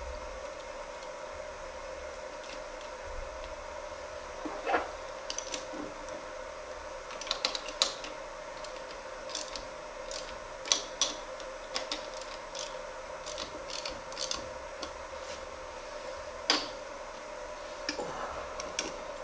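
Irregular sharp metallic clicks and clinks, some single and some in short runs, as a ratcheting wrench and the steel mold and claw parts are handled on a desktop injection molding machine. A steady faint hum runs underneath.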